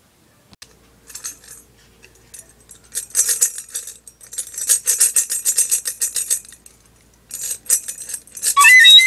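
Small plastic toy tambourine with metal jingles shaken in spells of rapid jingling. In the last half second a plastic toy flute starts up with a few shrill notes that step up and down in pitch.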